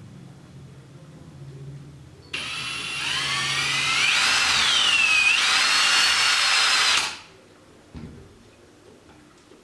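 Power drill boring a pilot hole in the ceiling: the motor whine starts suddenly a couple of seconds in and climbs in pitch, then sags and recovers as the bit bites under load. It cuts off abruptly after about five seconds.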